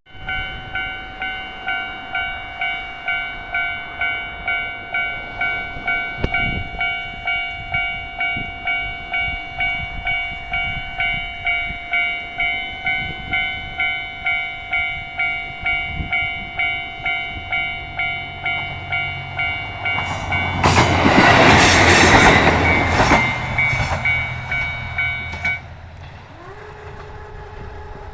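Japanese level-crossing warning bell ringing in a steady repeated clang, about one and a half strikes a second. About twenty seconds in, a KiHa 54 diesel railcar rolls over the crossing, loudest as it passes, with its engine droning and its wheels clacking over the rail joints. The bell stops a few seconds after the train has passed.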